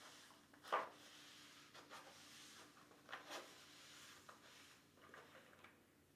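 Faint rubbing of a dry cloth rag wiping the inside of a plastic tub, with a few brief louder strokes, the strongest just under a second in.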